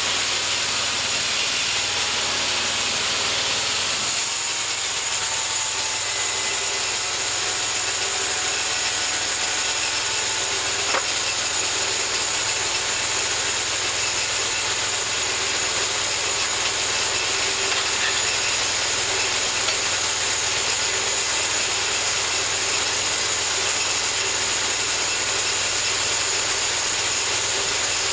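Homemade bandsaw mill running steadily, its blade cutting through a cherry log.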